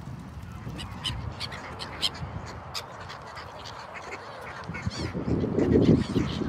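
A flock of waterbirds, Canada geese and black-headed gulls among them, calling in short, sharp cries. The calls grow louder and fuller from about five seconds in.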